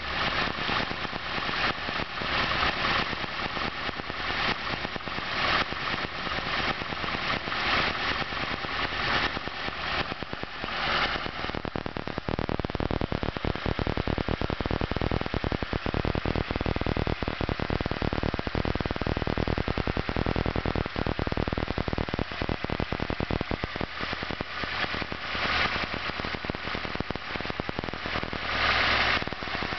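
Carburetted VAZ four-cylinder engine, fitted with an OKB 680 camshaft, shaved cylinder head and lightweight flywheel, running at idle. The idle is uneven and surges for roughly the first twelve seconds and again near the end, with steady rapid firing between. The owner puts the jerky running down to a carburettor that does not suit this setup.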